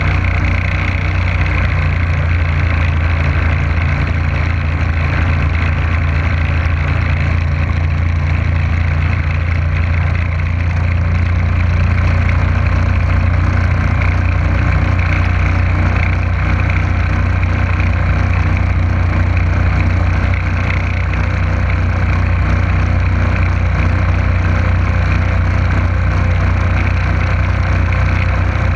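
Motorboat engine running at a steady cruising speed, a constant low drone that holds the same pitch and level throughout.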